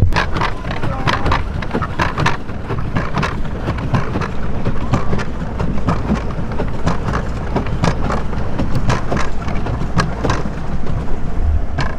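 Water splashing and churning irregularly around a moving pedal boat, with wind rumbling low on the microphone.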